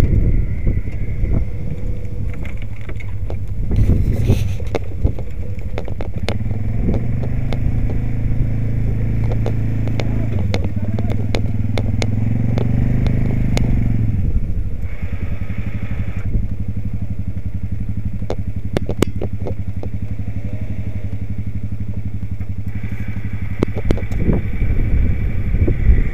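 ATV engine working under load while dragging a moose carcass through brush, its pitch higher for several seconds in the middle and then dropping back to a lower, steadier run. Scattered sharp clicks and snaps ride over it.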